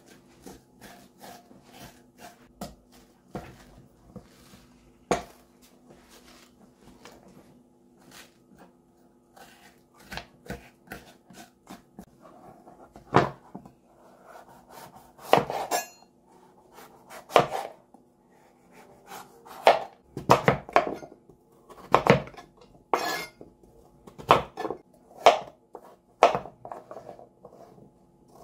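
A metal spoon scraping seeds and pulp out of a halved winter squash, then a kitchen knife cutting through the squash and knocking on a plastic cutting board. The knife strikes are scattered, sharp and louder in the second half, over a faint steady hum.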